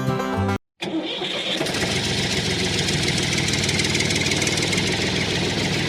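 Music stops about half a second in; after a brief silence an engine starts up and runs steadily with a fast, even chug.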